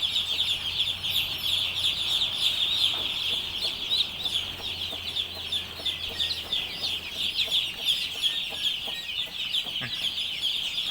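A flock of chickens clucking, with a dense, continuous high chirping throughout.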